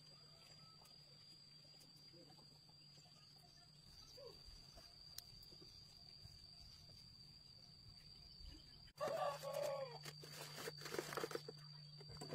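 Faint outdoor background with a steady high whine and a few faint short calls. About nine seconds in comes a sudden louder short call, then a run of clattering from plastic bottles being handled in a plastic crate.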